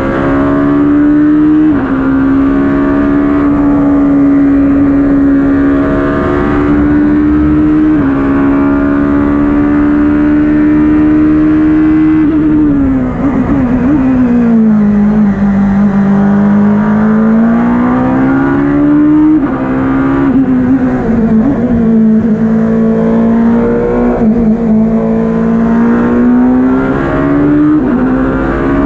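Judd V8 engine of a Ligier JS P2 LMP2 prototype heard from the cockpit under hard acceleration, its pitch climbing and dropping in steps at the upshifts. About halfway through it falls away with crackling downshifts under braking into a slow corner in second gear, then climbs again as the car accelerates out and shifts up.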